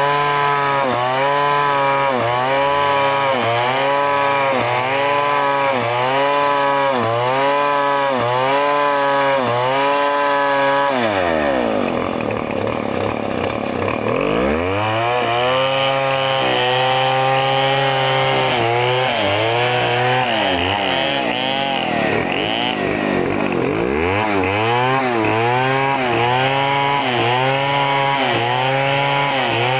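New West 070 two-stroke chainsaw with a Stihl bar, ripping lengthwise through a timber. The engine pitch dips under load about once a second. Twice it slows right down and revs back up.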